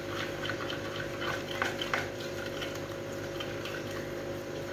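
Spoon beating thick gram-flour batter in a bowl: quick, irregular wet slaps and clicks of the spoon against the bowl, several a second, as the batter is whipped smooth.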